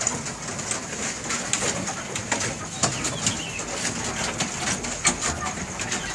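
Chickens in their coops clucking and calling, with scattered sharp taps.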